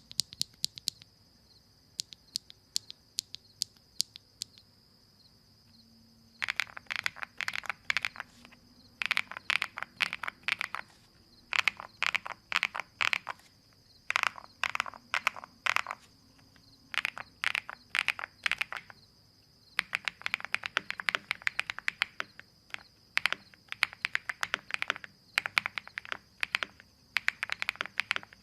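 Jelly evolv75 mechanical keyboard being typed on: a few scattered single keystrokes at first, then, from about six seconds in, fast typing in bursts of a second or two with short pauses between.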